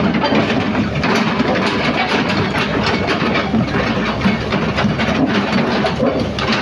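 SANY crawler excavator's diesel engine running steadily as the machine drives down off a lowboy trailer, with a fast rattle of its steel tracks over the deck and ramp.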